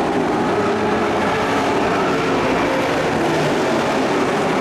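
Several dirt-track race trucks' engines running at racing speed as they circle the track, a steady drone of overlapping engine notes.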